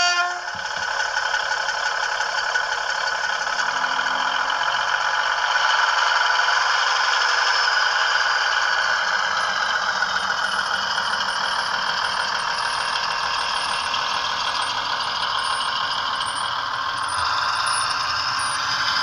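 Bachmann OO gauge Class 150 model's DCC sound decoder playing the diesel unit's engine as the model pulls away and runs, heard through the model's small on-board speaker. From about halfway in, a faint high squeak comes from one of the model's wheels, a dry wheel that needs oiling.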